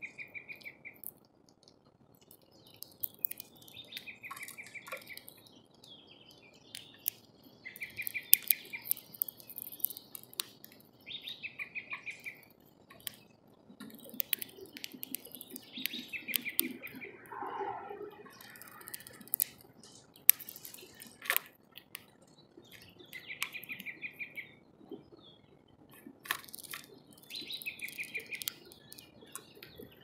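Small songbirds chirping at a bird feeder: short trilled chirps about a second long, repeating every few seconds, with many sharp clicks and taps in between and a lower, wavering call around the middle.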